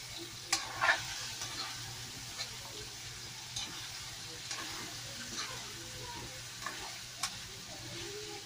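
Chicken pieces frying in a wok with a steady sizzle, stirred with a metal spatula that scrapes and clinks against the pan every second or so, with the loudest clatter about a second in.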